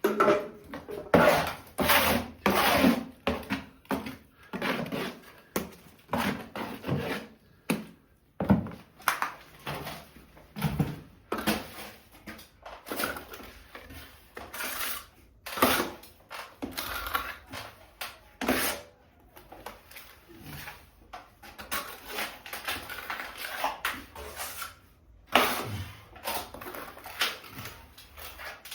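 Irregular knocking, clattering and scraping of hand building work in a small room: hard objects are struck and handled, with no steady machine running.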